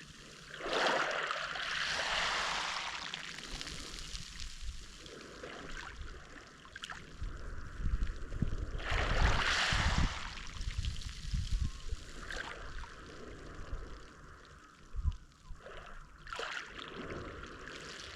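Mediterranean Sea waves washing onto the shore, swelling and fading in three surges: about a second in, around nine seconds in, and near the end.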